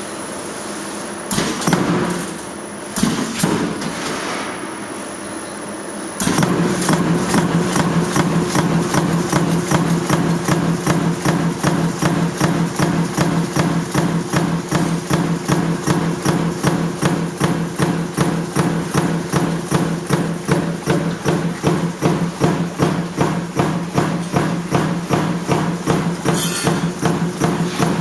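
Metal stamping press running continuously: sharp even strokes about three a second over a steady machine hum, starting suddenly about six seconds in. A few scattered metallic knocks come before it.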